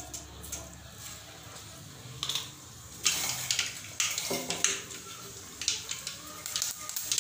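Mustard seeds spluttering and popping in hot oil in a kadai, a crackle of small sharp pops over a sizzle that grows denser and louder about three seconds in.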